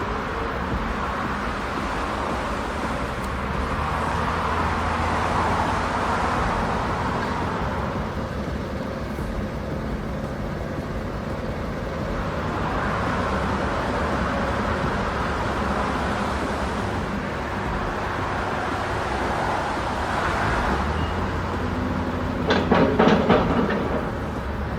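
A heavy logging truck's diesel engine running steadily under load, with tyre and road noise swelling and fading. Near the end comes a brief, louder rattling burst.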